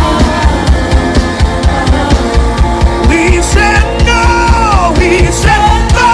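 Gospel worship band playing with a steady drum beat; a singing voice with gliding, falling notes comes in about halfway.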